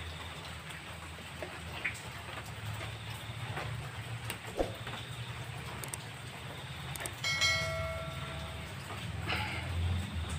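Steady low rumble of road traffic, with a horn sounding for about a second and a half about seven seconds in. A few light clicks and knocks come from hands working the connectors of a motorcycle battery.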